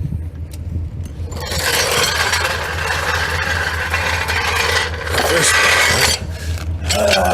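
Scraping and rubbing noises in stretches of a few seconds, from handling and moving about during work under a car. A steady low hum runs underneath.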